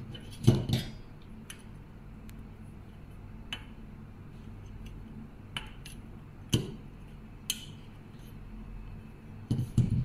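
Scattered small clicks and knocks of hands handling a plastic wire connector and an aluminium-channel IR sensor strip, the loudest about half a second in and a quick few near the end, over a low steady hum.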